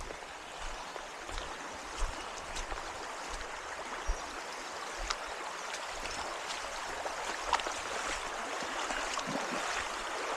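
Small creek running high, a steady rush of flowing water that grows slowly louder, with a few scattered small knocks and thumps.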